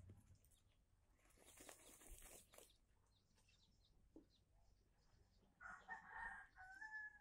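Faint rustling of a hen fluffing and shaking her feathers as she dust-bathes in loose soil, then near the end a chicken call of about two seconds, rising in pitch before it stops.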